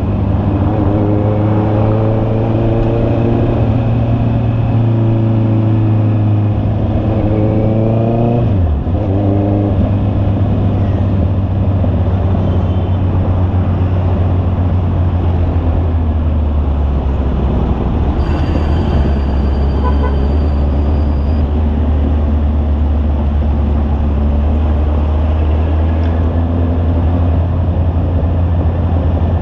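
Honda CB650R's inline-four engine running under way, rising in pitch twice as it pulls through the gears in the first several seconds, then running steadily at a lower pitch.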